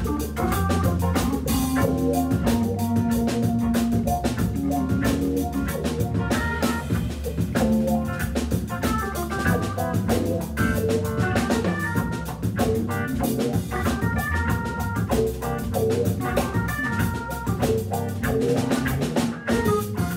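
Hammond B3 organ trio playing a funk groove: Hammond organ through a Leslie speaker, electric guitar and drum kit, with the bass line played on the organ.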